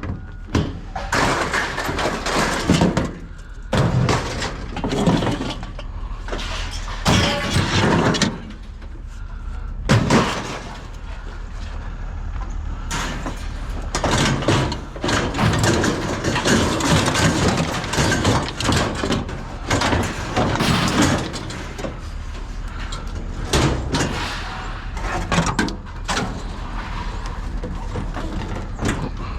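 Repeated bangs, knocks and clatter, irregularly spaced, with a steady low rumble underneath.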